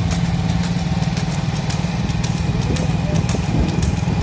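Motorcycle engine running steadily at road speed, a constant low drone, with scattered sharp clicks and knocks over it.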